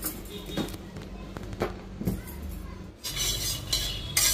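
A few sharp clinks of a metal pan and utensil as sesame seeds dry-roast, over a low steady hum; about three seconds in, a louder rushing hiss takes over.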